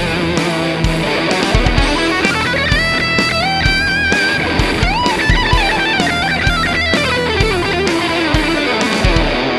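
Kramer Night Swan electric guitar played through a Z.Vex Box of Metal pedal into a Marshall JCM800 amp: a heavily distorted fuzz lead with fast runs and notes bent and slid up and down.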